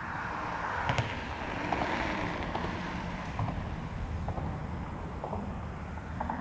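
Traffic on the bridge overhead: a vehicle's rushing tyre noise and low rumble that swells over the first couple of seconds and then fades, with a sharp clack about a second in and a few light ticks after.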